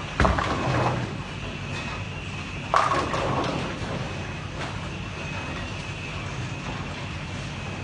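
Bowling alley sounds: a steady low rolling noise of bowling balls on the lanes, with two crashes of balls striking pins, one right at the start and another just under three seconds in, each rattling away over about a second.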